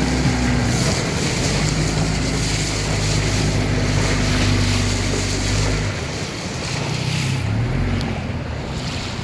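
Small outboard motor pushing a dinghy along at a steady speed, mixed with wind on the microphone and water noise; the motor's note changes about six seconds in.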